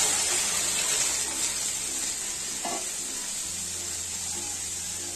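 Liquid rasam poured into hot sesame oil and popped mustard seeds in a kadai, setting off a loud sizzle that slowly dies down as the oil cools in the broth.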